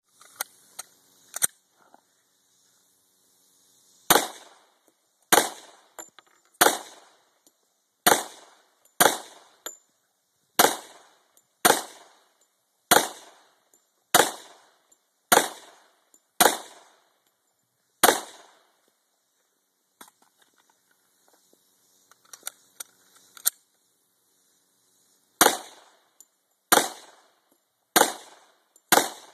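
Glock 21 .45 ACP pistol firing a steady string of shots about one a second, a pause with a few small metallic clicks as the magazine is swapped, then more shots at the same pace.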